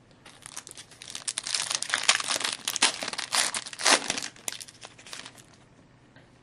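Wrapper of a trading-card pack being torn open and crumpled, with a dense run of crinkling crackles for about five seconds.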